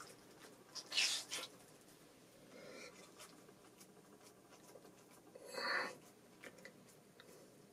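Faint rubbing and rustling of a stick-on tattoo sheet being handled and pressed onto skin, with scattered light ticks. There is a louder rustle about a second in and the loudest one about five and a half seconds in.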